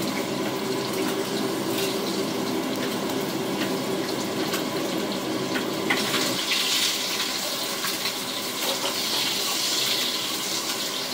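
Steady rush of running water, with a few light clicks and knocks; it grows hissier about halfway through.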